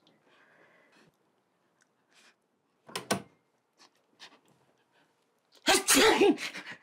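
Two quick sharp clacks at a door about three seconds in, then a woman sniffing loudly for about a second near the end.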